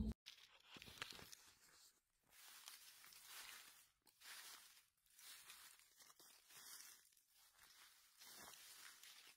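Very faint rustling and crunching of dry leaf litter in short, irregular bursts, as someone moves through it.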